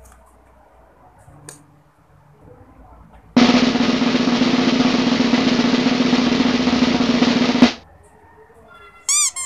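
A snare drum roll, starting abruptly a little over three seconds in and cutting off sharply about four seconds later. Near the end comes a short, warbling electronic tone.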